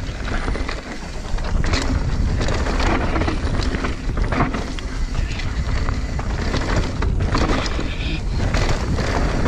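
Mountain bike ridden fast down a rough dirt trail: wind rumbling on the microphone, tyres rolling over the ground and the bike rattling, with frequent short knocks from bumps.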